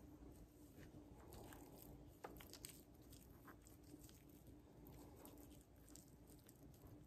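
Faint crunching and clicking of a kitchen knife cutting through fat on a raw rack of pork spare ribs, a few small irregular crackles scattered through.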